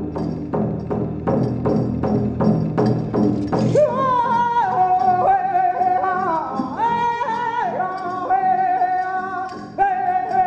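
Native American drumming with a steady beat of about three strokes a second. About four seconds in, a high singing voice enters with long, wavering held notes over the drum.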